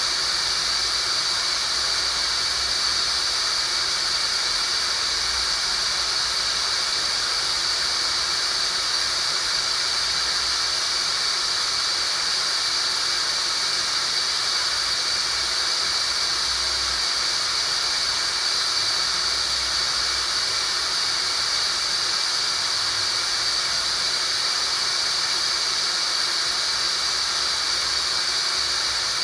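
Synthetic tinnitus-relief sound: a steady, unchanging hiss with a strong high-pitched band on top, played as a masking sound to push back ringing in the ears.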